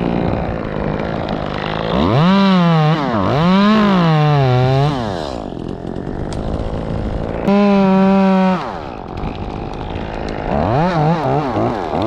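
Two-stroke chainsaw running at idle and being revved: two rising-and-falling swells a couple of seconds in, a short flat burst at full throttle around eight seconds in, and a few quick blips near the end.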